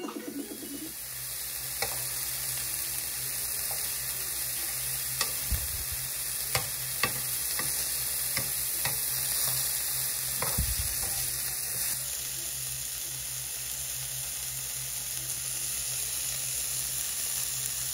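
Steady sizzling of food frying, with a few sharp clicks and two dull knocks along the way.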